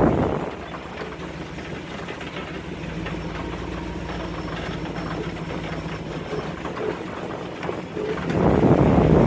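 Off-road vehicle's engine running slowly at low revs, a steady low hum with a fast rhythmic pulse. Loud wind rumble on the microphone dies away in the first half-second and comes back about eight seconds in.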